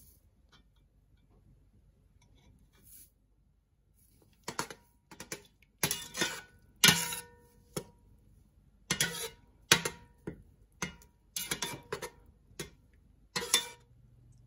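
A metal spoon stirring thick tomato sauce in an All-Clad stainless steel pot, clinking and scraping against the pot's side. After about four quiet seconds come a run of sharp clinks with a brief metallic ring, irregular, one to three a second.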